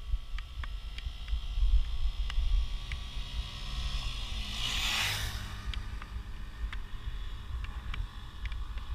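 Wind rumbling on the microphone of a moving bicycle. A motor vehicle passes close by about five seconds in, its noise swelling and fading over roughly two seconds.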